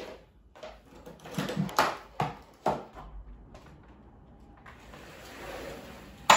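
A balcony door being handled and opened: a run of knocks and clunks, then a soft rush of outside noise coming in, and a sharp click near the end.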